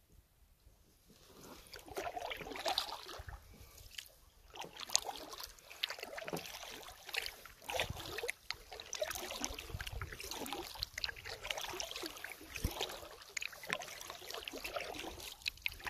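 Kayak paddling on calm water: the paddle blades dip and splash, and water trickles off them in an irregular patter that starts about a second and a half in, with a few soft low knocks.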